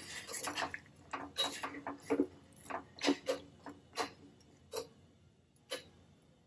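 Metal spoon stirring cauliflower florets in water in a stainless steel saucepan, clinking against the pan's side in irregular taps, one or two a second, that stop near the end.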